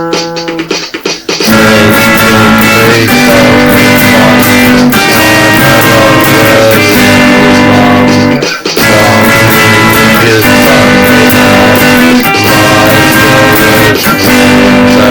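Loud instrumental rock with guitars and bass guitar. It breaks off briefly about eight and a half seconds in, then comes back.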